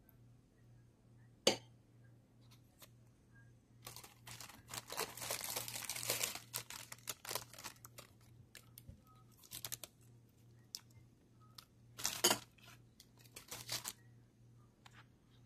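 Plastic packet wrapper crinkling and tearing, in two long bouts of crackling with scattered clicks between them, and a single sharp click about a second and a half in.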